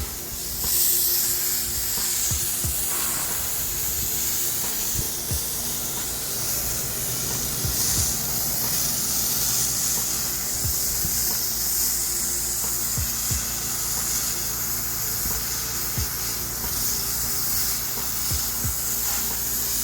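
Pressure washer wand spraying water in a steady hiss, pre-wetting painted surfaces, with the machine's engine running steadily underneath.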